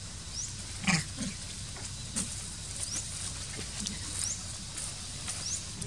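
Short, low grunts from a macaque, the strongest about a second in and another just after, with fainter ones later. Brief, high rising chirps repeat faintly throughout.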